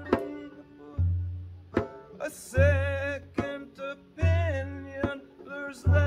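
Acoustic folk music: a deep drum struck about every second and a half, with plucked guitar and banjo and a wavering melody line over them.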